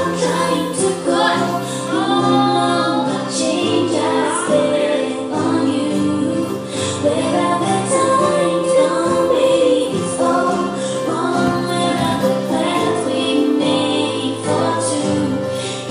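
Music: a woman singing over held accompaniment chords.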